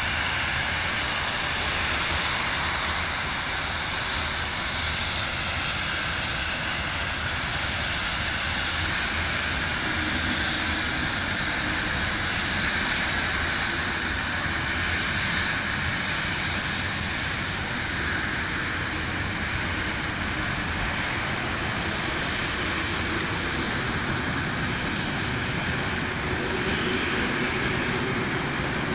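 Passenger carriages of a steam-hauled train rolling past on the rails: a steady, unbroken rumble of wheels on track with a hiss over it.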